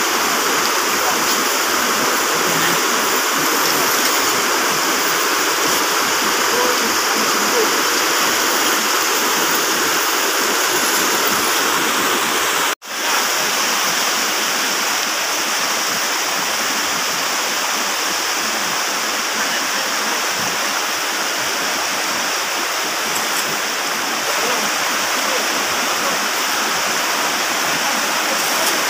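Fast, muddy river rushing over rocks and rapids: a steady roar of water. The sound cuts out for an instant about halfway through.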